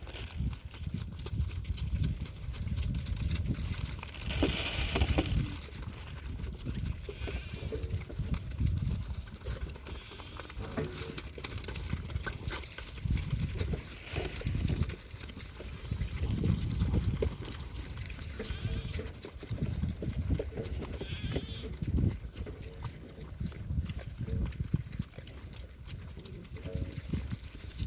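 Goats bleating now and then, over low rumbles that come and go.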